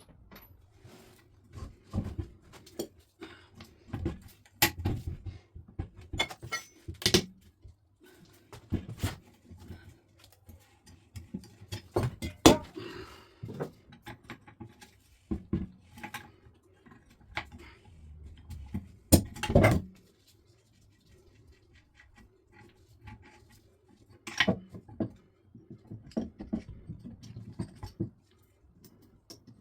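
Irregular knocks, clinks and clanks of hand tools and metal motorcycle parts being handled during dismantling, over a faint steady hum. Two sharper metal knocks stand out, about midway and about two-thirds of the way through.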